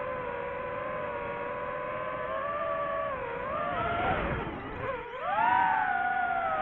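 DJI FPV drone's motors and propellers whining in flight. About three and a half seconds in the pitch dips and wavers as the throttle changes, then about five seconds in it sweeps back up sharply and gets louder.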